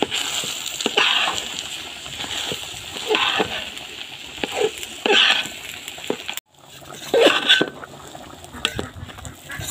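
Metal spoon stirring and scraping rice grains around a steel pot: a gritty rushing scrape with each stroke, one every second or two. The sound cuts out for a moment about two-thirds of the way through.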